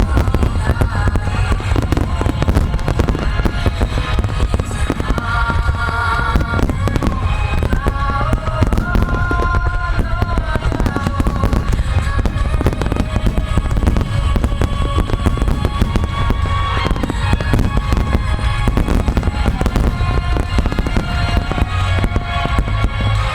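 Rapid, continuous barrage of large fireworks shells bursting and crackling over music with a melody line.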